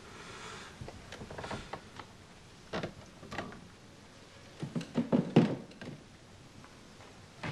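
Scattered knocks on wood: a few light raps at first, then a denser, louder cluster about five seconds in, like hands rapping on wooden desks.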